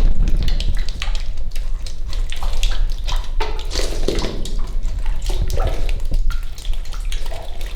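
Water splashing and trickling close by, with many small clicks and knocks and a steady low rumble underneath.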